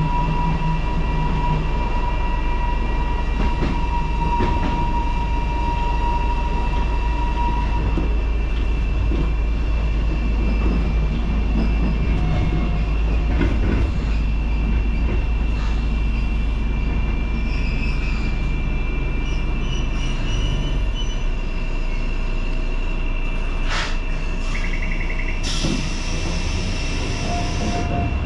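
Keifuku Electric Railroad (Randen) electric railcar running, heard from the cab: a steady low rumble of wheels and motors with a steady high whine over it. A brief hiss comes in near the end.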